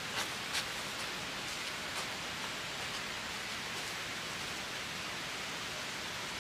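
Steady outdoor background hiss. In the first second, a couple of faint footsteps on a dirt yard fade out as the walker moves away.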